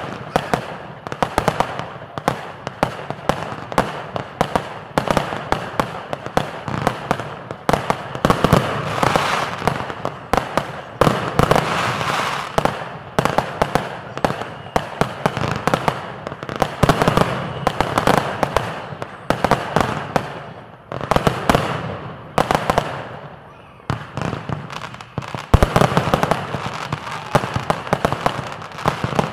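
Consumer fireworks going off in rapid succession: a dense, unbroken run of bangs and pops from aerial shells and fountains. It thins out briefly about three quarters of the way through, then picks up again.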